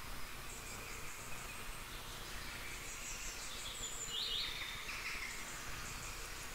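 Faint background ambience with thin, high chirps, a short cluster of them a few seconds in.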